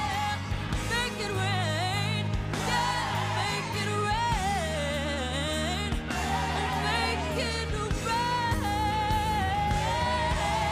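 Recorded song playing: a singing voice holds long notes that bend and waver in pitch, over a steady low bass.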